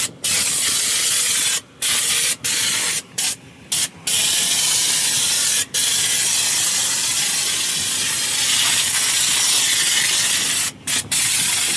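A jet of coconut oil being sprayed into an excavator's machinery, a loud steady hiss. The spray stops briefly several times, about once early on, a few times between two and four seconds in, and twice near the end.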